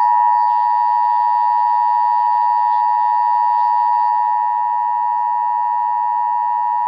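Emergency Alert System attention signal: a steady two-tone alarm of 853 Hz and 960 Hz sounded together, held unbroken and loud. It signals that an emergency warning message follows.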